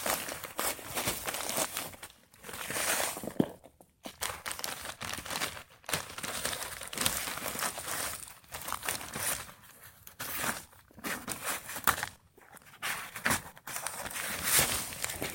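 Soil and dry, died-back potato plants rustling and crunching as potatoes are dug out by hand: irregular scraping and crackling in short spells with brief pauses.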